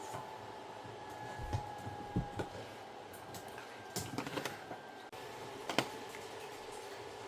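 Small clicks and taps of plastic doll accessories and packaging being handled: a few scattered knocks, a quick cluster about four seconds in, and one more near six seconds, over a faint steady hum.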